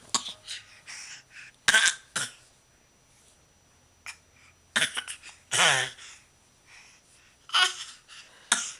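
A small child's fake coughs: short, forced coughs and throat-clearing noises, about six of them at uneven gaps. One a little past the middle is longer, with a falling pitch.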